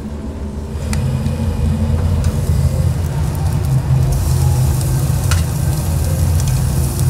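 Beef steak sizzling as it sears on a hot surface, a hissing crackle over a steady low hum that grows louder about a second in.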